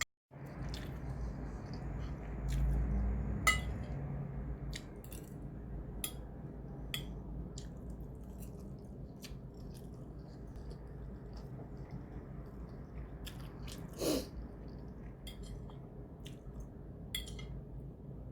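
A person chewing and eating a mouthful of broccoli rice, with scattered small clicks and mouth noises. A few brief louder sounds stand out, the most prominent about three-quarters of the way through.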